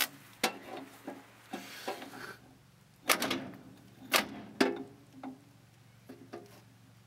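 Scattered sharp metallic clicks and knocks from hands working on parts in the open engine bay of a UAZ-469, the loudest about three and four seconds in.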